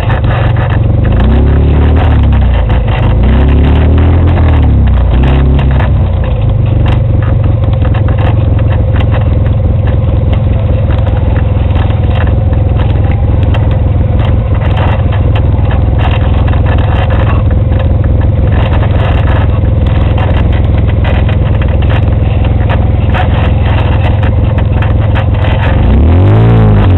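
Off-road vehicle engine running loud on a rough dirt trail, the revs rising and falling several times in the first few seconds, holding steadier after that, and climbing again near the end, with rattling and knocking over the rocks throughout.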